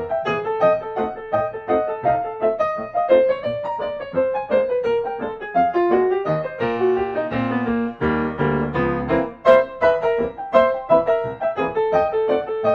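Background piano music: a quick, continuous run of notes, thickening into denser, lower notes in the middle.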